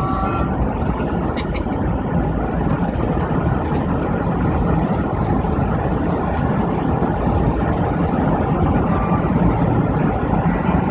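Steady road and engine noise inside a moving car's cabin, a low, even rumble of tyres and engine while driving.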